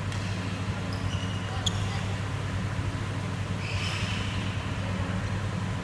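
A steady low hum fills the badminton hall, with short high squeaks of sneakers on the court floor about a second in and again near four seconds, and one sharp tick in between.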